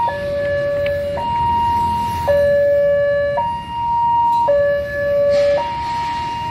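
Railway level-crossing warning alarm sounding an electronic two-tone signal, a lower and a higher tone alternating about once a second. It signals a train approaching the closed crossing.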